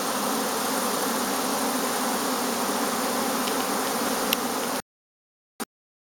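Dense, steady buzzing of many Carniolan honeybees flying around the hive entrances: busy foraging traffic. It cuts off suddenly about five seconds in.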